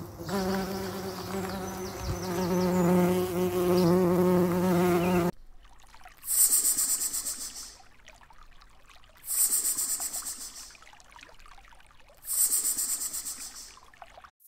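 An insect buzzing steadily in flight, its pitch wavering slightly. About five seconds in it stops abruptly, and three short, very high-pitched rasping bursts follow at intervals of about three seconds.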